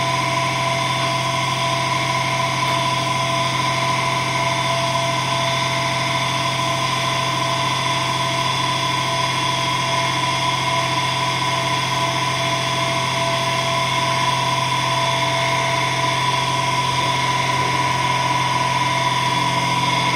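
Electric motor running steadily, spinning a wooden disc fitted with twelve magnets past a copper tube coil in a magnet (eddy-current) heater test rig, drawing about 700 watts. It makes an even whine over a low hum, unchanging throughout.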